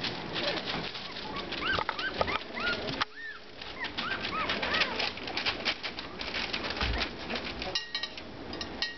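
Young Rottweiler puppies wrestling, letting out many short high squeaks and whimpers that rise and fall in pitch, over a constant scratching and rustling of paws on the blanket.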